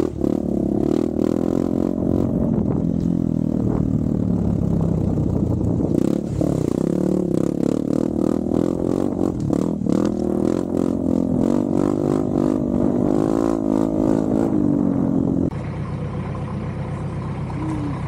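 Motor vehicle engine running and revving over a rough dirt trail, its pitch rising and falling, with rattling. A few seconds before the end it changes abruptly to a quieter, steadier running.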